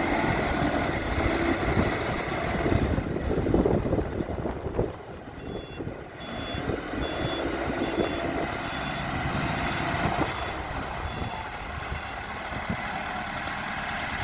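A 2001 JCB 4CX backhoe loader's diesel engine runs throughout. In the middle stretch its reversing alarm sounds as an evenly spaced run of short, high beeps, the signal that the machine is backing up.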